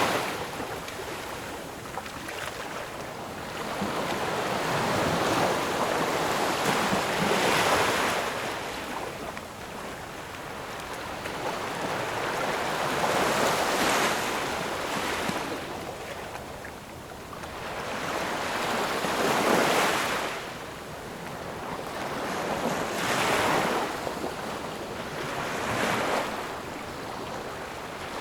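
Ocean waves breaking and washing up the shore. The hiss swells and fades in a surge every few seconds.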